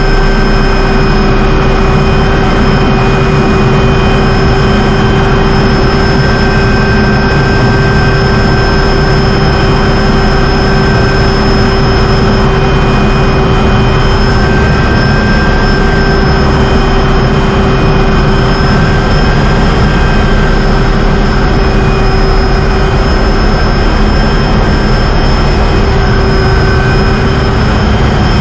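MD500 helicopter's turbine engine and rotor heard from inside the cockpit during an approach and landing on a boat's deck: a loud, steady running noise with a constant high whine over it.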